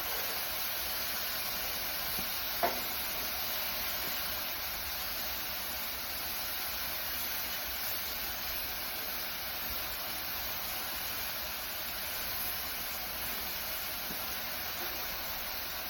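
Turkey mince burgers sizzling steadily on a Blackstone flat-top griddle, with a single short click about three seconds in.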